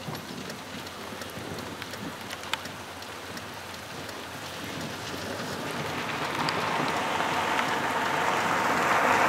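Heavy rain pattering on a car's roof and windshield, with scattered sharp drop ticks. The downpour grows steadily louder from about halfway through.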